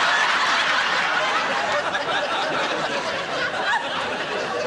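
Audience laughing amid general crowd noise, slowly dying down.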